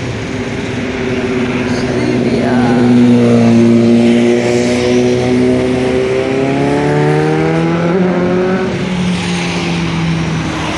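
Kawasaki Ninja ZX-12R superbike's inline-four engine passing and accelerating away, its note climbing steadily in pitch for several seconds. It is loudest a few seconds in.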